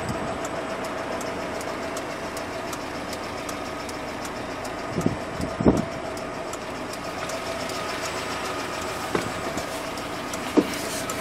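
GAZ Gazelle Business truck engine idling steadily, heard from inside the cab. A couple of short knocks come about five seconds in and another near the end.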